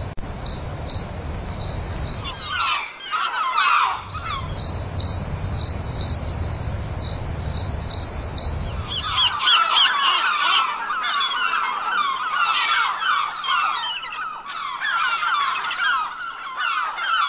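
A high, even chirping pulse, about twice a second, like an insect, over a low rumble that drops out briefly around three seconds in; about nine seconds in the rumble and pulse stop and many birds chirp densely.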